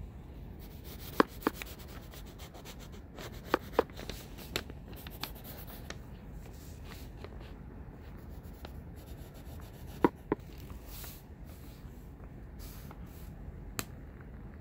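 Pencil sketching on lined notebook paper: light scratching and rubbing strokes of the graphite. A few sharp clicks break through, mostly in close pairs, about a second in, near four seconds and around ten seconds.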